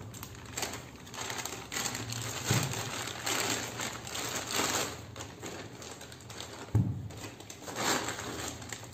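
Plastic courier mailer bag rustling and crinkling in bursts as it is pulled open and a boxed phone is drawn out of it, with one dull thump about two-thirds of the way through.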